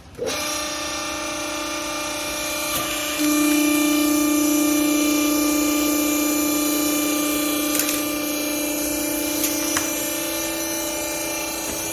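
Hydraulic cloth baler running, its pump motor giving a steady whine that starts just after the opening and gets louder about three seconds in, with a couple of faint clicks later on.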